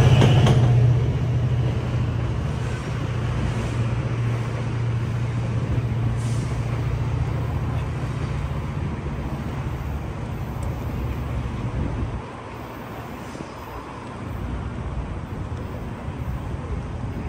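A GO Transit commuter train's diesel locomotive running with a steady low hum that slowly fades and drops off about twelve seconds in, over a steady hiss of city traffic.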